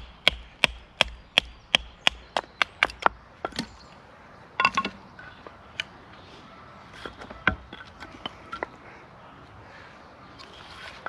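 Repeated chopping strikes on wood, about three sharp blows a second for the first few seconds, then a quick cluster and a few scattered knocks.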